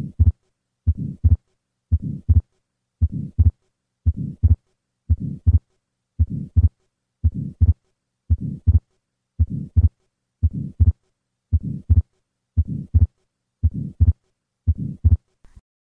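Heart sounds of an atrial septal defect beating steadily about once a second, with a soft systolic flow murmur across the pulmonic valve and the fixed split second heart sound typical of the defect.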